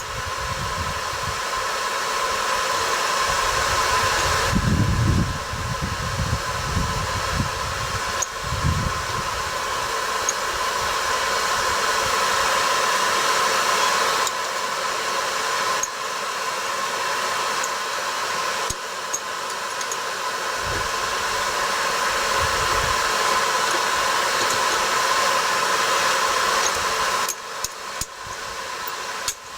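Blacksmith's forge running with a steady blowing hiss while hot steel is twisted, with a few low thuds early on and sharp metal knocks starting near the end.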